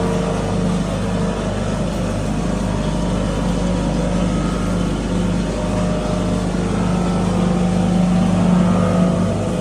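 Poultry feed grinder machine running steadily under power, a constant low motor hum with an even low pulsing.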